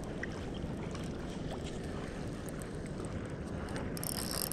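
Steady wind rumble on the microphone while a spinning reel is wound in. About four seconds in, a hissing splash starts as the hooked ladyfish thrashes at the surface.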